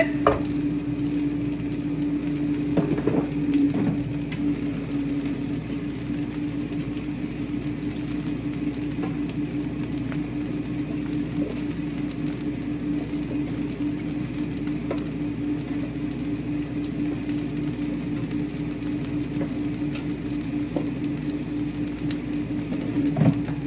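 Steady low hum of a kitchen fan running, with a few light clunks about three seconds in.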